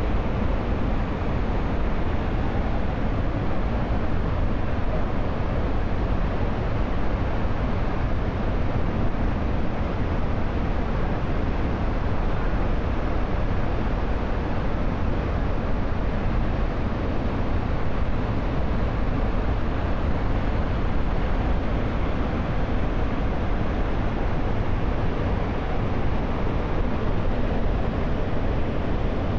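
Jog Falls in heavy monsoon flow, a steady rushing of falling water that does not change, heaviest in the low end.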